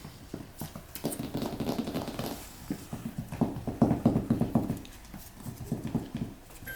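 Labradoodle puppies playing: a busy run of quick taps and scuffles, busiest and loudest a little past the middle.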